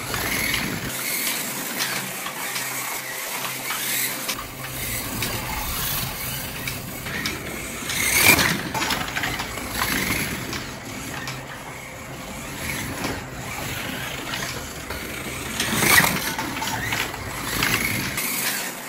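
Two Porsche 917 slot cars racing on a plastic track: small electric motors whirring and the cars rattling along the track, getting louder twice, about eight seconds apart, as they pass close by.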